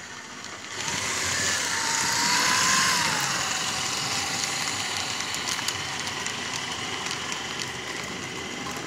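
Gützold model of a BR 52 steam locomotive running past with its freight train. The motor whine rises and falls as the locomotive goes by, over the rumble of the wheels on the track.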